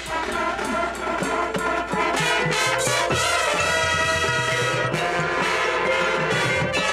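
Marching band playing the opening of its field show, brass and percussion together. Short accented chords come first, then full brass chords are held from about two seconds in, with low bass notes entering about a second later.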